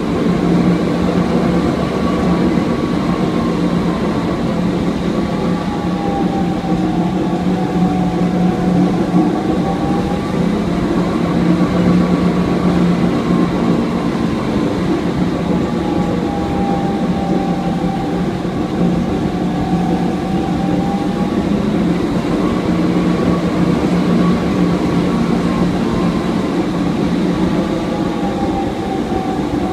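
Loud, steady running of heavy electrical plant machinery: a constant low hum with a higher whine that slowly dips and rises in pitch several times.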